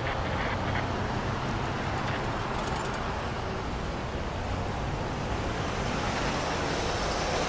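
Steady rumble of a distant approaching train mixed with wind noise on the microphone, with a pickup truck driving across the grade crossing near the end.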